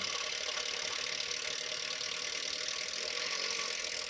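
Power drill running steadily under load, driving a self-drilling Tek screw to fix a number plate back on.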